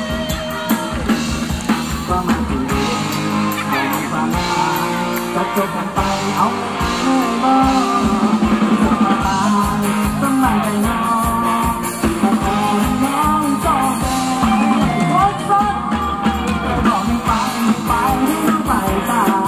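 Live Thai ramwong band music: a singer's melody over the band with a steady beat.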